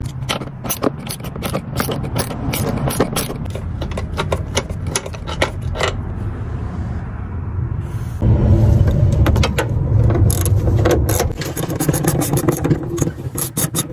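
Socket ratchet clicking rapidly as the bolts on a truck seat's floor rails are worked loose. About eight seconds in, a louder low hum comes in under the clicks.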